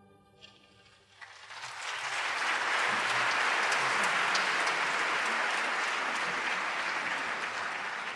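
After a second of near hush, a large audience breaks into applause, swelling quickly to full strength and then holding steady.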